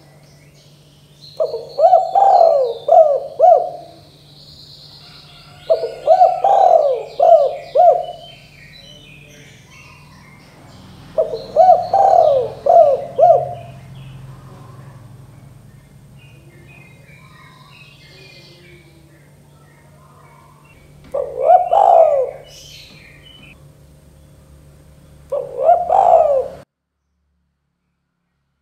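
Spotted dove (tekukur) cooing in five phrases of several quick coos each, with small birds chirping faintly in the background and a low steady hum beneath. The recording cuts out abruptly near the end.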